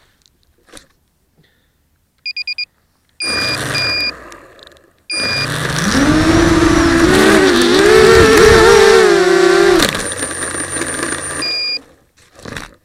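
A small FPV quadcopter on the ground gives several short electronic beeps. Its electric motors then spin up and run loudly for about five seconds with a wavering pitch, and drop back near the end with more beeps.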